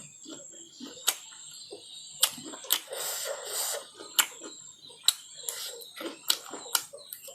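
Close-miked eating of fatty pork: sharp mouth smacks and clicks about every half second to second, with a longer noisy stretch of chewing about three seconds in.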